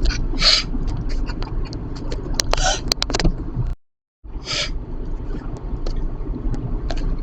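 Steady road and engine rumble inside a slow-moving car, with three short hissing bursts of a person's breath about half a second, two and a half seconds and four and a half seconds in. The sound cuts out completely for about half a second near the middle.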